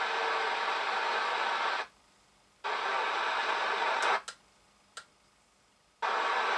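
Static hiss from the loudspeaker of a Moonraker Major UK 27 MHz FM CB radio on an empty channel. The hiss cuts out cleanly twice, for about a second and then for nearly two seconds. A few sharp clicks come just as the channel is switched.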